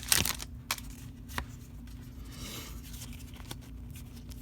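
Light handling of a booster pack and its cards: a few soft clicks and a brief swish of cards sliding, after the loud crinkle of the foil wrapper.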